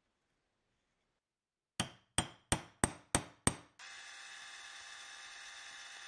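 Six sharp metallic knocks on the steel Zippo lighter insert, about three a second, then a small hand-held power drill running steadily on the insert for about two and a half seconds.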